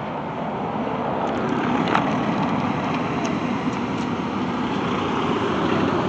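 A car running: a steady noise that slowly grows a little louder.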